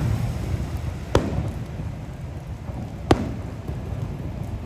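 Fireworks going off: two sharp bangs, about a second in and again two seconds later, over a steady low rumble.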